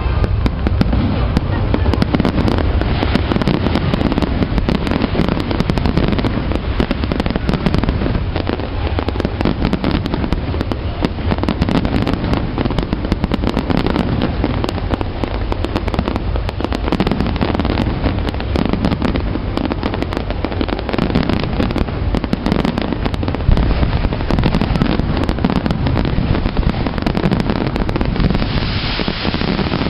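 Fireworks display: aerial shells bursting and crackling in a dense, unbroken barrage, the bangs overlapping so thickly they never pause, with one sharper bang about two-thirds of the way through.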